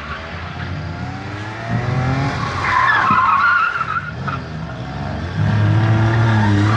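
Small hatchback's engine revving under hard driving around cones, with tyres squealing for a second or so about two and a half seconds in. The engine note rises early on and then settles into a louder, steady pull in the last second and a half.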